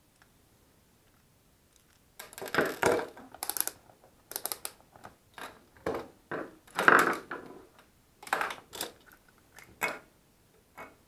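Irregular clicks, scrapes and rustles of hands working on a mains plug and its cable, starting about two seconds in.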